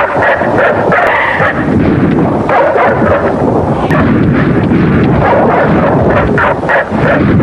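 Kaiju film fight sound effects: loud monster roars and cries layered with rumbling crashes and explosions, continuous throughout.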